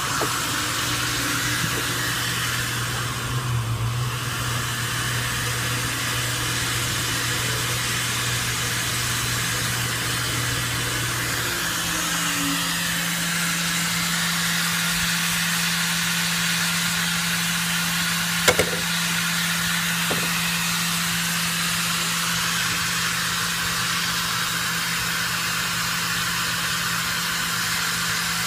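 Build-A-Bear air-bath station blowing air from its nozzles onto a plush toy to clean off loose fluff: a steady rushing hiss over a motor hum, the hum stepping up in pitch partway through. A single sharp click about two-thirds of the way in.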